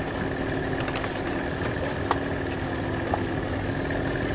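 Boat engine idling steadily: a low rumble with a faint steady whine, and a few faint knocks.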